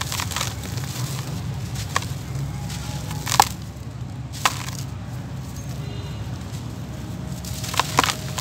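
Dry, gritty dirt lumps crushed and crumbled by hand, loose dirt pouring and crackling between the fingers. A few sharp cracks stand out, the loudest about three and a half seconds in and a pair near the end.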